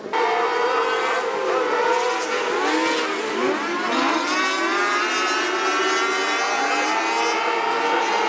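Several wingless 600 micro sprint cars racing together, their 600cc motorcycle engines running at high revs, with many overlapping pitches rising and falling as the cars accelerate, lift and pass.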